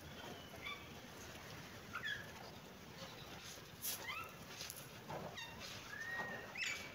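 Kitten mewing: about five short, high-pitched mews that rise in pitch, the last one longer and held before sweeping up near the end.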